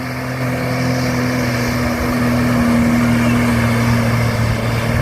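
Motorboat engine running steadily, growing louder over the first couple of seconds as it comes closer, then holding.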